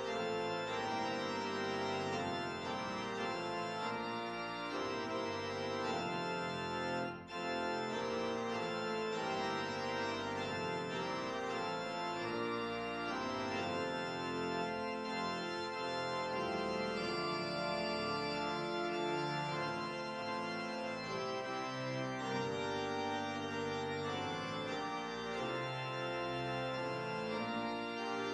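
Organ music: sustained, full chords played continuously, with a brief break about seven seconds in.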